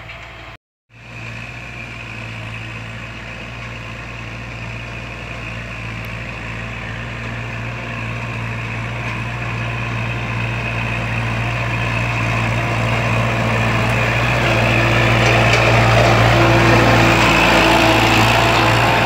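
Kubota tractor's diesel engine running steadily as it pulls a disc plough through paddy soil, growing louder as the tractor approaches and loudest near the end. The sound cuts out completely for a moment just under a second in.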